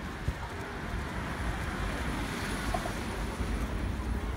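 Street ambience: passing car traffic that swells and fades about halfway through, over a steady low rumble of wind on the microphone.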